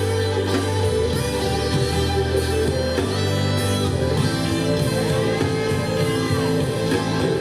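Instrumental passage of a gospel worship song, led by guitar over steady bass and sustained chords.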